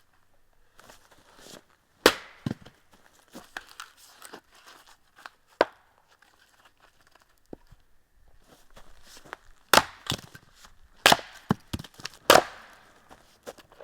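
Axe blows splitting firewood: a series of sharp strikes into wood at uneven spacing, the loudest about two seconds in and four heavy ones close together in the last five seconds.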